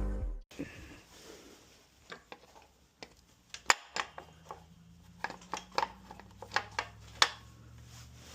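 Hand tools clinking and tapping against metal parts of a 2006 Honda CRF100F engine being taken apart: a dozen or so sharp clicks at irregular intervals, with a faint steady low hum starting about halfway through.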